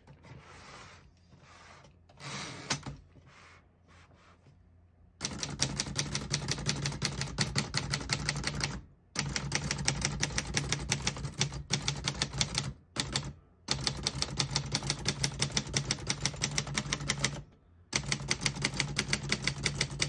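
1950 Underwood Universal portable typewriter being typed on: a fast, even run of key strikes, with a few short breaks, starting about five seconds in. Before that come only faint clicks and handling rustle.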